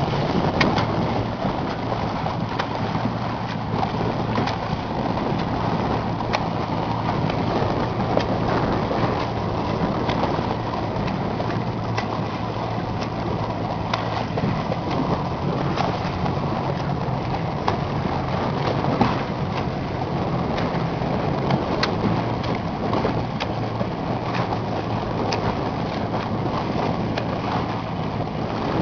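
Boat motor running with a steady low hum under a constant rush of wind and water, broken by scattered light clicks and splashes.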